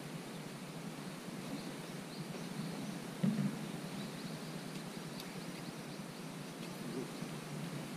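Outdoor ambience by a river: a steady low background rush with a few faint, short bird chirps, and a brief low thump about three seconds in.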